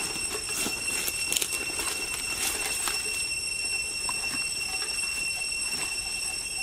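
A steady, high-pitched insect drone held at several pitches at once, with footsteps crunching through dry leaf litter, mostly in the first three seconds.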